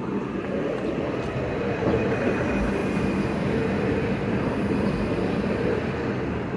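Light rail tram running along its track: a steady rumble of motors and wheels on rail. A faint, thin wheel squeal comes in about two seconds in and lasts a little over a second.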